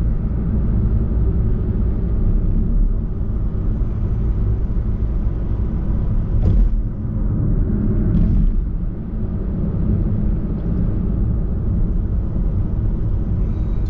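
Steady road rumble of a car being driven, heard from inside the cabin: engine and tyre noise. A short sharp knock comes about six and a half seconds in.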